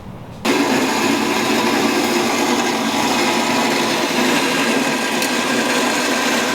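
Power tool running steadily at full speed, cutting in abruptly about half a second in.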